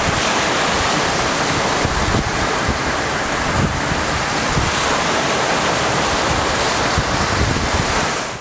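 Lake waves washing and breaking on a rocky shoreline, with wind rumbling on the microphone. The sound cuts off suddenly near the end.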